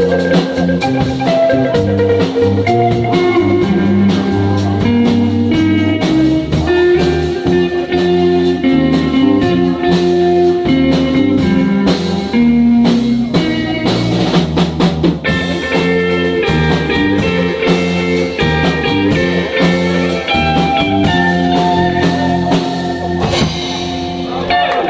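Live instrumental music: a busy run of pitched, sharply struck or plucked notes over a steady pulse, easing off slightly just before the end.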